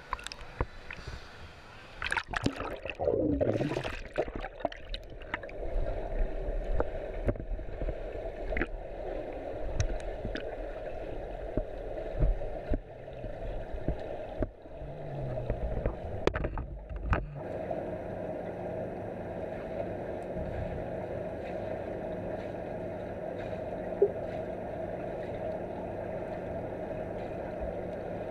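Water splashing and sloshing against a camera at the surface of a swimming pool for the first few seconds, then the steady, muffled hum of the pool heard underwater.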